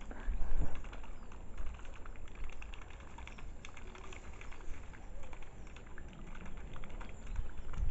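Rapid, irregular clicking and pattering of a water bird dabbling and slurping food at the water's surface, over low wind rumble on the microphone.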